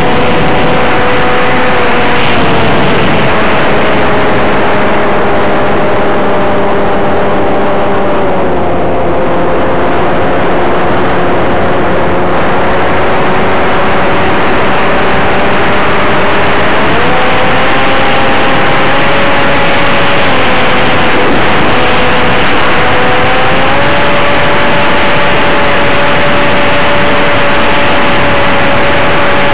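Onboard audio from an FPV RC plane: a loud rush of wind noise and static over the whine of the electric motor and propeller. The whine's pitch drops about a quarter of the way in, climbs again past halfway, dips briefly, then climbs once more.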